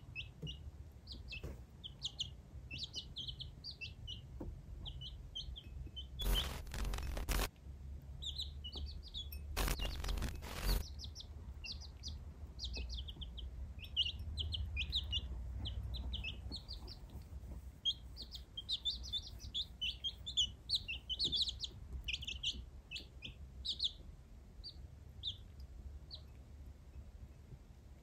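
Baby chicks peeping continuously, many short high chirps overlapping. Twice, about six and about ten seconds in, a loud burst of noise lasting about a second cuts in over them.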